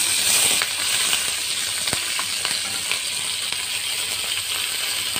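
Fresh curry leaves sizzling in hot oil with mustard seeds and dried red chillies: a tadka (tempering). The hiss is loudest at the start as the leaves hit the oil, then settles into a steady sizzle with a few sharp pops.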